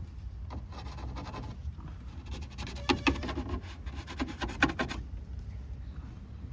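Scratching and rubbing of hands working at the truck's headliner fabric, with clusters of sharper scratches about three seconds in and again around four and a half seconds, over a low steady hum.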